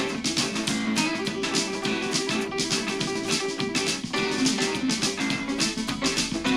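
Music with a plucked guitar part and a steady beat, played through a KISONLI S1 Bluetooth speaker in a sound test.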